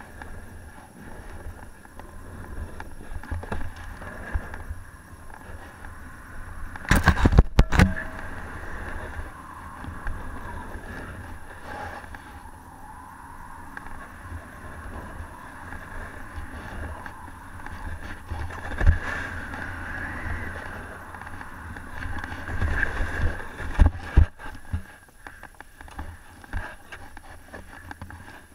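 Snowboard sliding and carving down a groomed snow piste, a steady scraping hiss of the board on the snow. There is a cluster of sharp knocks about seven seconds in, and further single knocks later.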